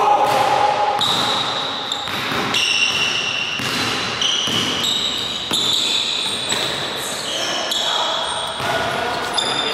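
A basketball dribbled on a hardwood gym floor, bouncing about once a second, with high-pitched sneaker squeaks on the wood throughout, in a reverberant gym.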